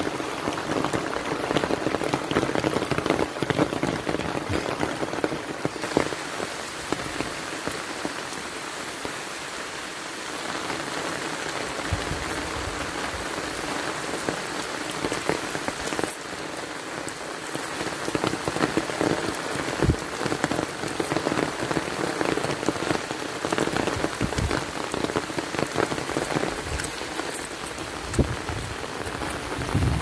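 Steady rain falling, with occasional louder individual drops close by.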